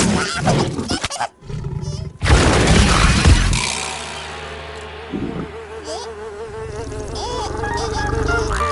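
Cartoon fly sound effect: a fly's buzz wobbling up and down in pitch, steady through the second half. Before it, a busy scuffle of noises includes a loud crash about two to three seconds in.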